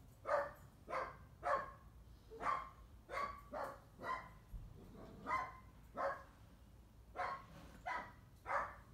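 A dog barking over and over, about a dozen short barks in uneven runs.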